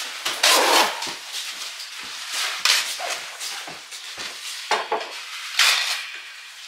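Irregular scraping and clinking of cutlery against dishes, with a few louder scrapes about half a second in, in the middle and near the end.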